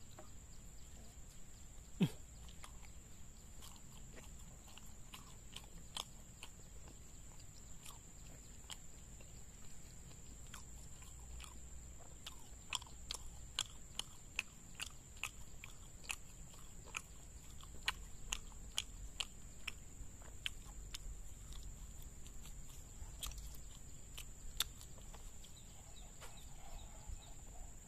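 Close-miked chewing of martabak: wet mouth clicks and lip smacks as a mouthful is worked, sparse at first and coming thick and fast in the second half.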